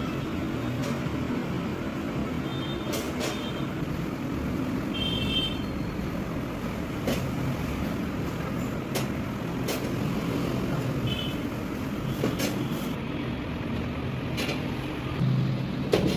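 Steady low rumble of background noise like road traffic, with scattered sharp clicks and a few brief high chirps.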